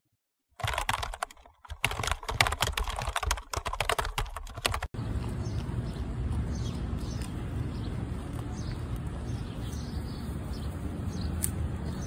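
About four seconds of rapid, dense clicking over the intro, stopping suddenly. Then steady low outdoor rumble with faint, short high bird chirps.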